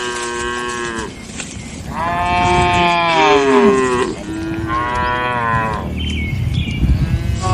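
Cattle mooing: a run of long, drawn-out calls one after another, the loudest about two seconds in and overlapping a second animal's call, with a short higher-pitched call near the end.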